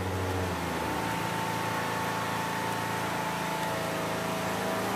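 Lawn mower engine running steadily, its pitch shifting slightly about half a second in.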